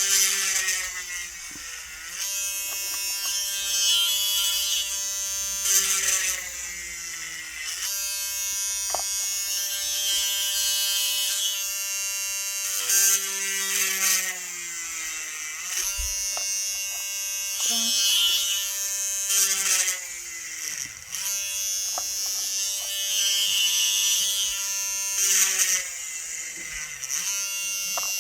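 USB-powered mini electric hand drill running with a steady high whine while drilling an eye-pin hole into a cast resin letter, with a harsher grinding burst every few seconds as the bit cuts into the resin.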